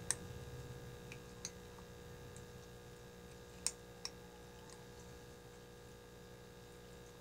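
Two-month-old Puspin x Persian kitten eating from a metal plate: a few short, sharp clicks of teeth and food against the plate, the loudest right at the start and about three and a half seconds in, over a faint steady hum.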